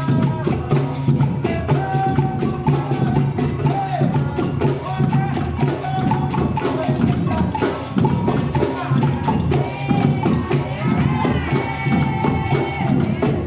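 Brazilian-style percussion group rehearsing: drums and clacking hand percussion play a steady, dense rhythm, with voices over it.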